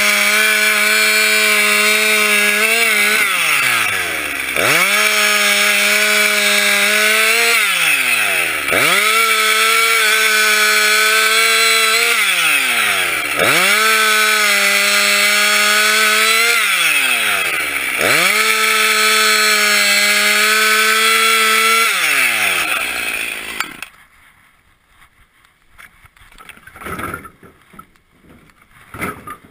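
Husqvarna 346XP two-stroke chainsaw running at full throttle through birch logs, its revs falling away and climbing back five times as the throttle is eased between cuts. The saw stops about 24 seconds in, followed by a few faint knocks.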